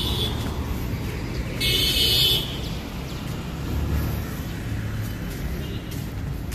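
Steady low street-traffic rumble, with a vehicle horn tooting once, briefly, about two seconds in.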